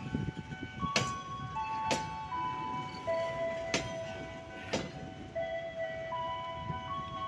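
Empty flat container wagons of a freight train rolling past, their wheels clacking over rail joints about once a second. Behind them a chime-like melody of held single notes steps from pitch to pitch.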